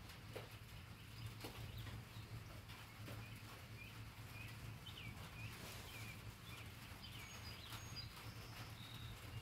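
Faint birds chirping in short, quick calls, mostly through the middle, over a steady low hum.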